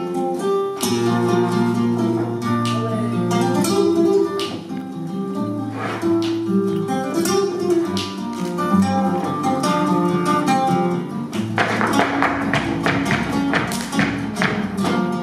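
Flamenco guitar music with plucked notes throughout. Near the end comes a run of quick, sharp strikes.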